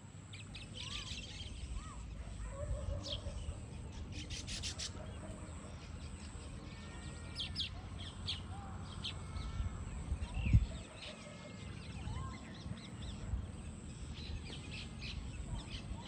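Baya weavers chirping and chattering: many short high chirps and quick rattling runs of notes, over a low steady rumble. One dull thump comes about ten seconds in.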